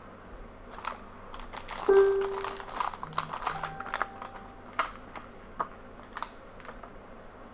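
Foil booster pack and clear plastic figure bag crinkling and crackling as they are torn open and handled, densest about two to three seconds in, then scattered sharp crinkles. A short steady tone sounds about two seconds in.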